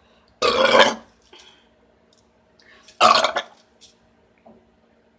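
A woman belching twice, about two and a half seconds apart, each burp lasting around half a second, brought on by drinking a carbonated diet cola.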